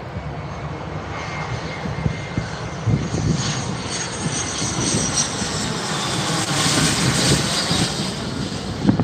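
Small twin-engine business jet on final approach, landing, passing low overhead: steady jet engine noise with a high whine that grows louder, loudest about seven seconds in, then easing slightly.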